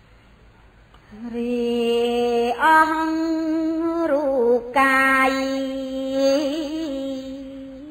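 A woman chanting Khmer smot, Buddhist verse sung unaccompanied: long held notes with wavering ornaments, starting about a second in and stepping up in pitch, with a brief break about halfway.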